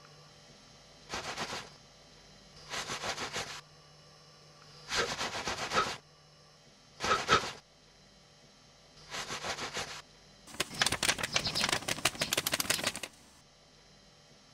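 Six bursts of rapid clicking rattle, each about half a second to a second long, and a final, denser burst of about two and a half seconds near the end.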